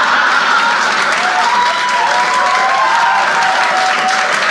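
Comedy-club audience applauding steadily after a punchline, with a few voices calling out over the clapping in the middle.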